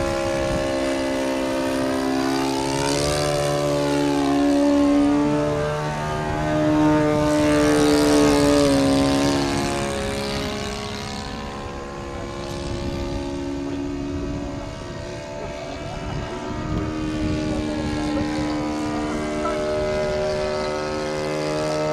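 Engine of a radio-controlled Sopwith Pup scale model biplane running in flight, a steady propeller drone whose pitch rises and falls as the plane passes, loudest about five and eight seconds in.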